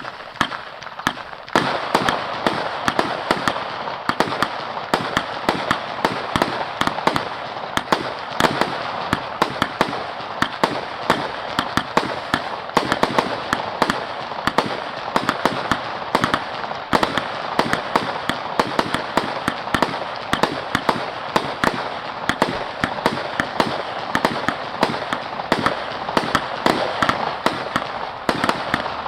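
Scorpion 100-shot firework battery (cake) firing continuously: a fast, unbroken run of sharp reports, several a second, over a steady crackle. It starts abruptly and grows louder about a second and a half in.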